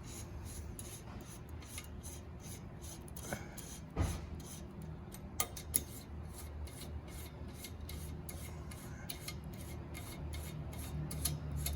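A 5mm Allen key tightening the bolts at the top of a rotisserie oven's spine, with metal rubbing and scraping and scattered small clicks, and one sharper knock about four seconds in. A steady low hum runs underneath.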